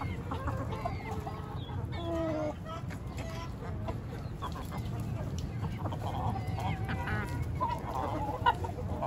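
A flock of backyard hens and roosters clucking and calling as they feed on kitchen scraps, with many short overlapping clucks, one longer drawn-out call a little after two seconds, and denser clucking in the last few seconds. A single sharp click stands out near the end.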